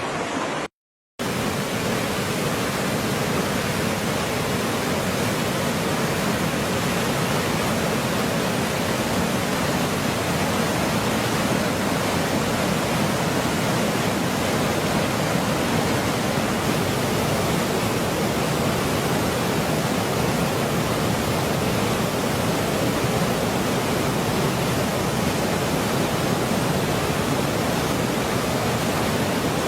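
Waterfall: water falling steadily, a dense, even rush. It breaks off in a split second of silence about a second in, then carries on unchanged.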